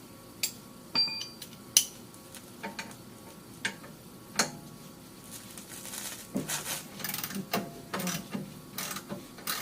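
Hand tools working on the exhaust clamps and muffler hanger bolts: a few separate sharp metallic clicks and clinks, then a quicker run of clicks from about halfway.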